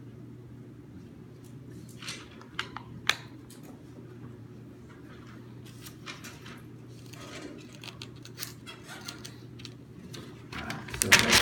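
Sheets of paper being handled and a written sheet slid away, with the loudest rustling near the end. A few sharp clicks about two to three seconds in, over a steady hum.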